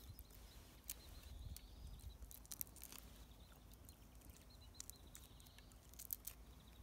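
Faint, scattered crackling and clicking of a grilled shrimp's shell and legs being pulled off by hand.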